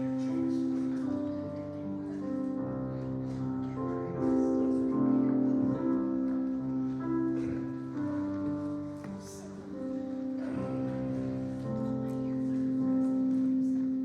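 Slow instrumental keyboard music: sustained chords held and changing every second or two.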